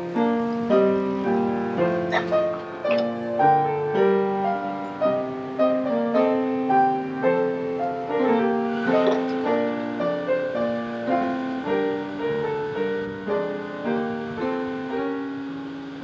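Solo piano playing, a steady stream of notes that softens near the end.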